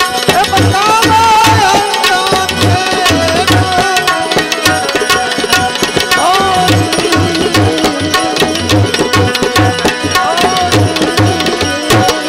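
Live Gujarati devotional folk music (santvani): hand drums playing a steady beat under a melody line that slides and bends in pitch, with no words sung.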